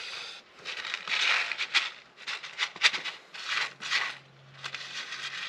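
Threshed wheat grain rustling and rattling in a handheld plastic tub as it is handled, in irregular bursts with a few sharp clicks.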